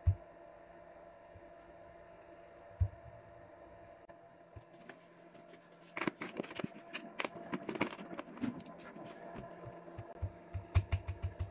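Hands handling a Dell Chromebook and the camera: a thump at the start and another about three seconds in, a cluster of clicks and rustling about halfway through, and a quick run of dull thumps near the end, over a steady faint hum.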